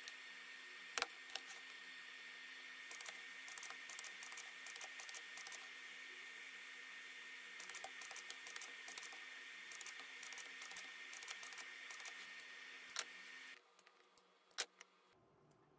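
Small metallic clicks and clinks as nickel strips and lithium cells are handled and fitted together, with a few sharper single clicks, the loudest near the end. A faint steady electrical hum with a high whine runs underneath and cuts off suddenly near the end.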